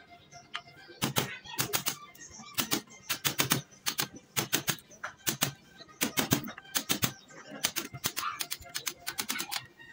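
Wood chisel being driven into an ulin (Bornean ironwood) beam to chop out a joint: quick runs of sharp knocks, several a second, with short pauses between runs.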